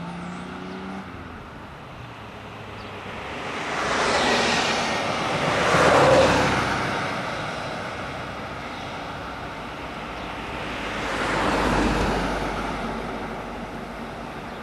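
Passing road traffic: two vehicles go by, each a rushing noise that swells and fades over a few seconds, the first about six seconds in and louder, the second near twelve seconds.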